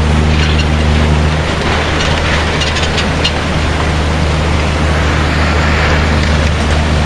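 Loud, steady roar of a tsunami flood rushing through a town, with a deep low rumble underneath and a few sharp cracks of debris about two to three seconds in.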